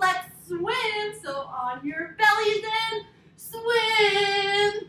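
A woman's voice chanting in a high sing-song, with long drawn-out held notes.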